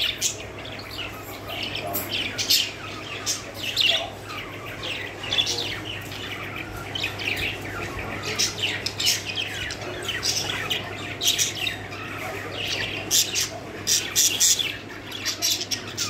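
Pet budgerigars chirping and squawking in a cage: a steady run of many short, high calls, with a faint low hum beneath.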